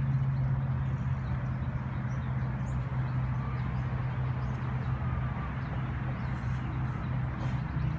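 A vehicle engine idling with a steady low hum, and a few faint bird chirps.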